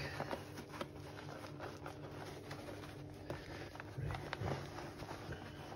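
Faint handling noise from a wet sock being tugged and worked down in a sink, with scattered soft clicks and rustles. A short low sound comes about four seconds in.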